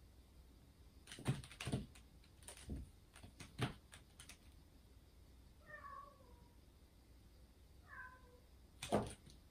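A kitten batting and jumping at a closed wooden door, making a run of sharp knocks and thumps, then giving two short, high, falling meows. A last loud thump against the door comes near the end.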